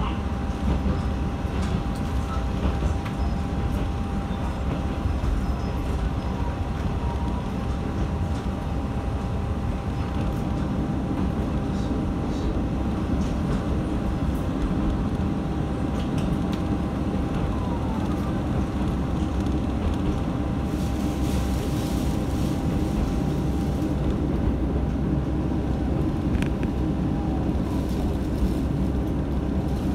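Matsuura Railway MR-600 diesel railcar running steadily, heard from inside the cabin: engine rumble and wheel-on-rail noise, with a thin steady whine through most of it.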